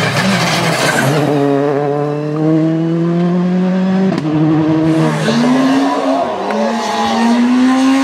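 Citroën C3 rally car's turbocharged four-cylinder engine under hard acceleration. The pitch climbs through each gear and drops sharply at quick upshifts, several times over.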